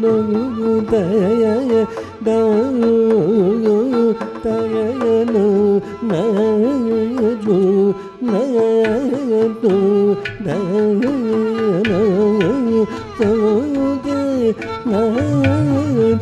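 Carnatic vocal music: a male singer sings heavily ornamented, gliding phrases, with a violin following his melody and occasional percussion strokes.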